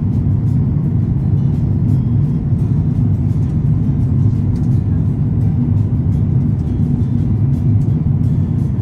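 Steady low rumble of an airliner's cabin noise in cruise flight, the engines and airflow making an unchanging drone.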